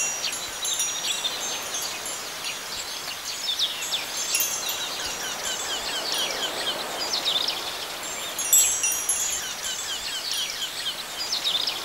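Wind chimes tinkling, many light high rings overlapping irregularly, with livelier clusters about 4 and 8.5 seconds in.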